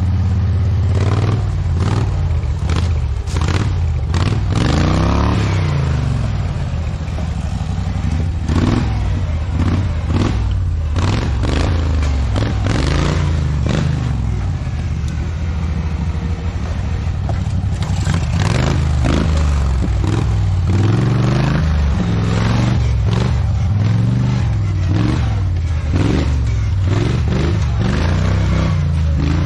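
Garden tractor's engine running and revving up and down while it crawls over rocks. Frequent clattering knocks and scrapes come from the machine on the rock.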